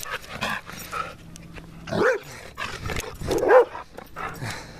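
An excited dog barking in rough play, with two short, loud barks about two and three and a half seconds in, the second the loudest. Scattered knocks and rustles come from the camera being jostled.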